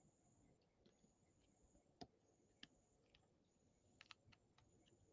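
Near silence with a few faint sharp clicks, the loudest about two seconds in: trading cards being handled and a card slid into a clear plastic holder.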